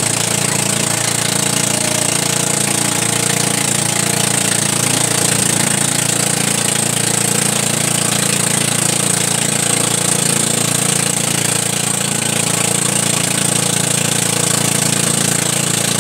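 Engine of a motorized outrigger boat running steadily at cruising speed, with the rush of water and spray beneath it.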